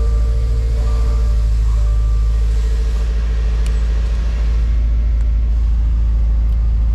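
The 2.0 L turbocharged flat-four engine of a 2020 Subaru WRX running at a steady fast idle just after starting, heard from inside the cabin as a low, even rumble.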